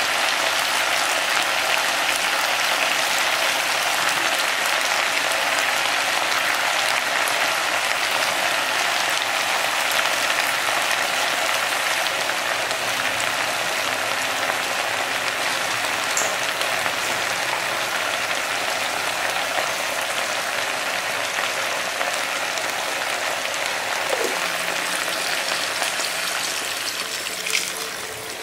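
Chicken pieces frying in a pan: a steady, crackling sizzle. Near the end it quietens as water starts pouring in.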